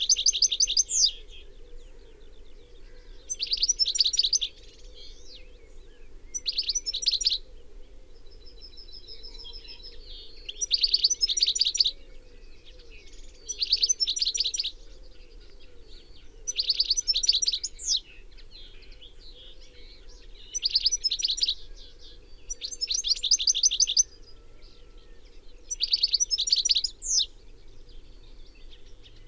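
European goldfinch singing: about ten short phrases of rapid, high twittering, one roughly every three seconds.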